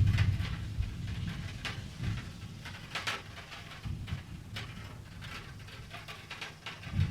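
Scattered light clicks and taps over a low rumble that dies away within the first second; the sharpest click comes about three seconds in.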